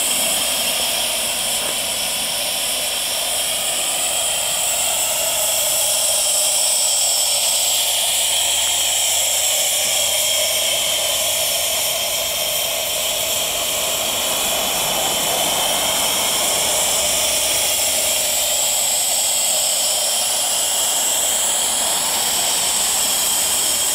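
Steady, loud hiss of steam from an 18-inch vertical fire-tube boiler, with steam jetting up out of its smokestack.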